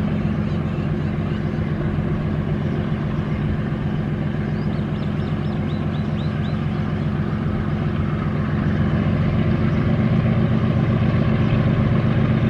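Diesel locomotive hauling a double-stack container train, its engine running with a steady low drone that grows louder about two-thirds of the way through as it draws nearer.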